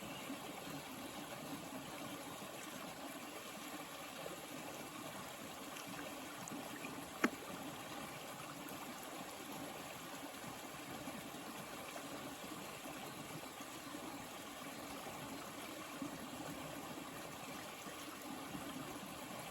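Water flowing steadily, with one sharp click about seven seconds in.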